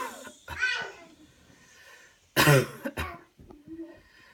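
A person coughing hard on purpose in several loud, voiced bursts, the loudest about two and a half seconds in: a deliberate, instructed cough after a deep breath in.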